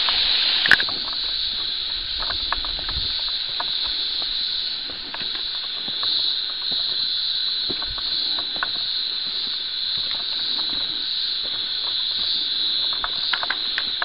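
A steady, high-pitched chorus of insects buzzing without a break. Light footsteps and twig crackles are scattered through it, the loudest snap about a second in.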